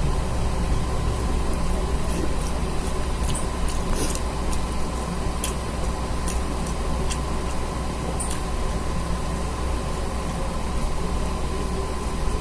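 Steady low hum, with scattered small clicks and smacks of a person eating rice and curry.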